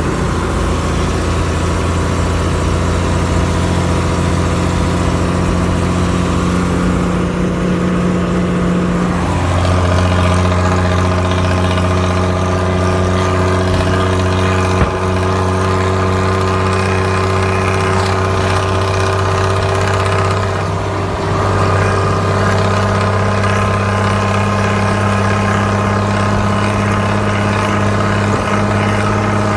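Tata 1210 D truck's diesel engine idling steadily, its note shifting slightly about nine seconds in and again about twenty-one seconds in.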